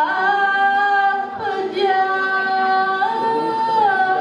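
A woman singing solo and unaccompanied into a microphone, holding long notes that step up in pitch for about a second near the end and then come back down.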